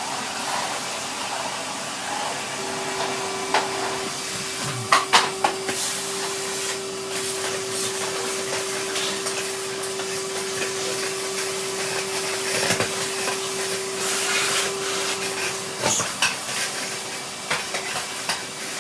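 Vacuum cleaner running with a steady hum and rushing air, the nozzle and tube knocking and clattering against things now and then.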